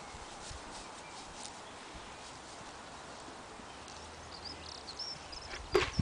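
Quiet outdoor ambience over a grass field with a few faint ticks. A small bird chirps several times, about four to five seconds in, and a short knock comes just before the end.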